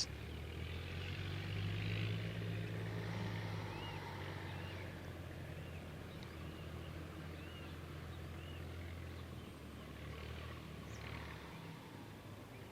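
Low steady hum of a vehicle engine, loudest about two seconds in and dying away near the end, with faint short bird chirps over it.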